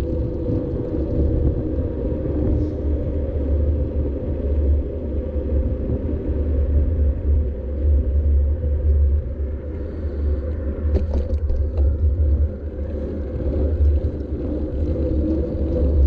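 Low, steady rumble of wind and road vibration on a bicycle-mounted GoPro while riding, with a short cluster of clicks about eleven seconds in.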